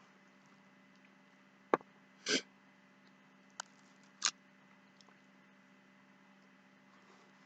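Eating sounds over a faint steady hum: two sharp clicks, like a fork against a plate, and two short noisy bursts, the first a little under two seconds in.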